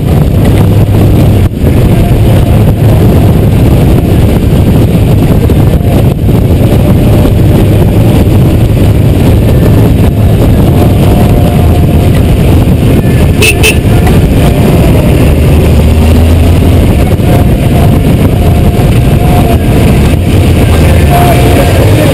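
Honda GoldWing 1500's flat-six engine running steadily under way on the road, mixed with constant loud wind and road rush on the bike-mounted camera's microphone.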